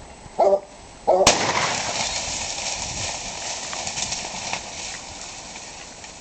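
A hunting dog barks twice, then about a second in a sudden sharp crack is followed by a loud, harsh rushing noise that slowly fades over the next few seconds.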